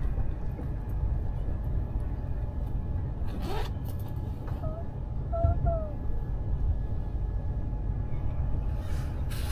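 Steady low rumble of a high-speed train's passenger cabin while the train runs at speed. A few short pitched sounds come about halfway through.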